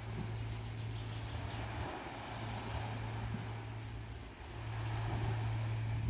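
Small waves washing gently onto the beach from a calm sea, over a steady low drone like a distant engine that dips briefly about four seconds in.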